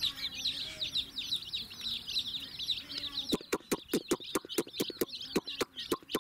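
Many chicken chicks peeping without pause in high, falling chirps. From about halfway through, a rapid run of sharp clicks, about five a second, sounds over the peeping.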